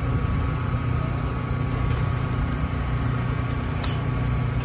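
Steady drone of an idling engine. Near the end there is a single sharp click as the racing-harness buckle is worked.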